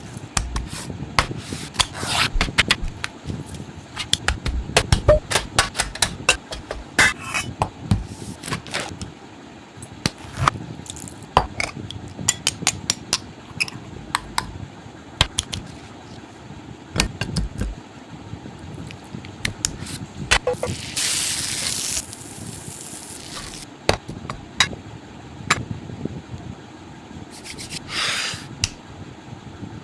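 Food-preparation handling sounds: repeated knocks, clatter and scraping of utensils and dishes, with a short burst of hiss about two-thirds of the way through and a briefer one near the end.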